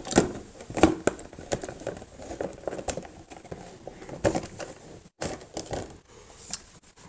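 Packaging being handled as a mouse is taken out of its box: irregular rustling and crinkling with many small clicks and knocks.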